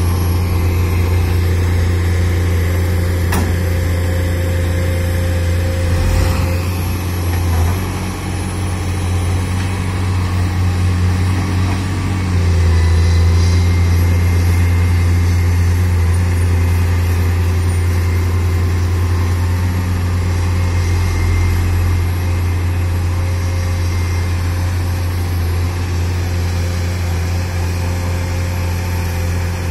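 Komatsu tracked hydraulic excavator's diesel engine running steadily with a deep hum, getting louder about twelve seconds in as the machine works harder climbing the sand bank. A few short knocks come in the first few seconds.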